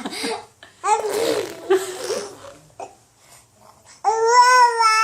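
Baby babbling and vocalizing: short breathy, wavering voice sounds, then about four seconds in a long, steady, high-pitched vocal drone, the baby's motorbike-like noise.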